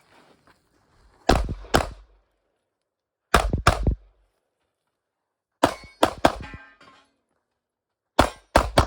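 Pistol shots fired in quick pairs, one pair about every two seconds, with a faster string of three near the end. Steel targets ring after some of the hits.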